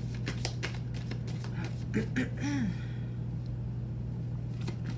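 A deck of tarot cards being shuffled by hand: a quick run of small card flicks and clicks for the first couple of seconds, a few more near the end, over a steady low hum.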